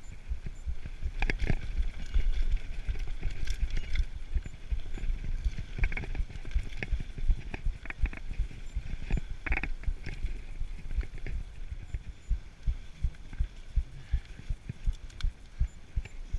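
Mountain bike riding over a bumpy dirt trail, rattling and clattering with a dense run of low knocks from the bumps and sharper clanks now and then. It grows quieter and more even in the last few seconds as the bike slows.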